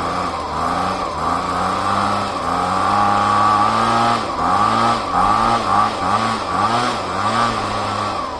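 Husqvarna handheld leaf blower's two-stroke engine running, its pitch gliding up and down. In the second half it is revved quickly several times in a row, each rev rising and falling.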